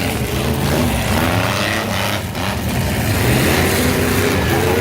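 Several demolition derby car engines running and revving at once, their pitch rising and falling as the cars accelerate and back up.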